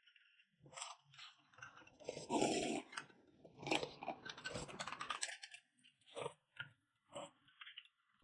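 Close-up eating sounds: chewing a soft steamed bun, with sips of corn soup, in irregular bursts that are busiest in the middle and thin out into separate short bites near the end.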